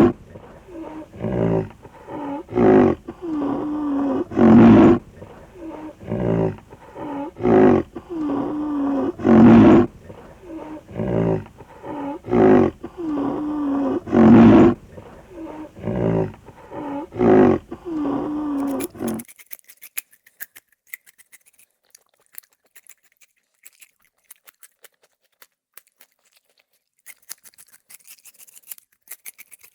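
An animal calling over and over, about once a second with louder calls every two to three seconds, then stopping abruptly about two thirds of the way through; faint scattered clicking follows.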